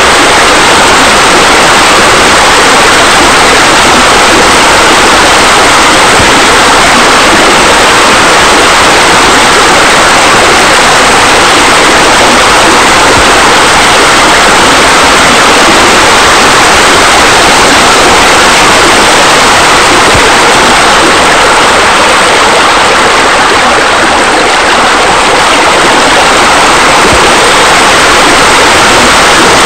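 Steady, loud rushing water like a waterfall, continuous and unbroken, as of pool water features spilling into the water.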